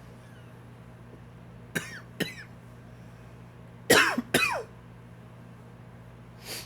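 A man's dry cough, brought on by allergies: two short coughs about two seconds in, then two louder coughs a moment later, and a faint one near the end.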